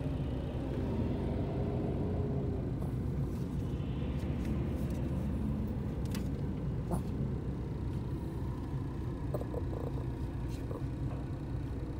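Steady low rumble of heavy traffic, heard from inside a car, as semi trucks hauling oversized modular-building loads on multi-axle trailers pass through the intersection.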